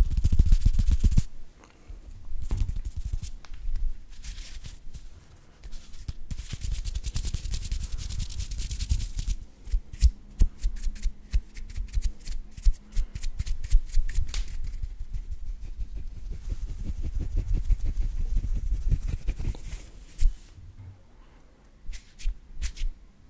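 Hand sounds right at a microphone: palms and fingers swishing and rubbing, with swells of air rush and rumble, then a middle stretch of rapid crackly clicks from the fingertips. It gets quieter near the end, with a few last clicks.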